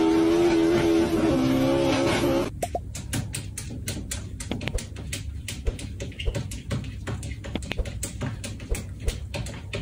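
A car engine running with a steady droning note that shifts in pitch, cutting off abruptly about two and a half seconds in. It is followed by a run of light, irregular clicks and taps.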